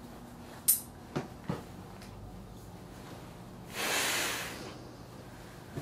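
A sharp click, then two softer clicks, followed a few seconds in by a long breathy puff of about a second as someone draws on a cigarette and breathes out.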